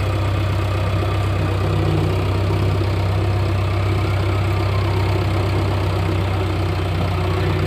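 JCB 3DX backhoe loader's diesel engine running steadily at an even speed, with no revving.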